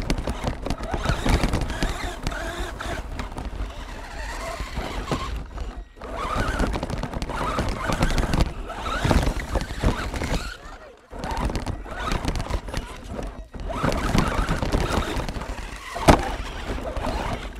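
Onboard sound of a Redcat Volcano RC truck driving over gravel, heard from the camera mounted on it: the chassis and body rattle and clatter constantly as the tyres bump over stones. The din dips briefly a few times.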